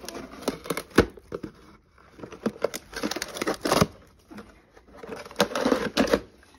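A dog pawing and tearing at a small cardboard box: cardboard ripping, crinkling and scraping in irregular bursts, with sharp knocks of the box, the sharpest about a second in and longer stretches of tearing around the middle and near the end.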